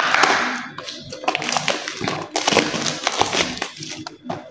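Packaging being torn open by hand: crinkling, crackling rustles of the wrapping and cardboard on a small wireless-microphone box, loudest about the first second, then many short crackles.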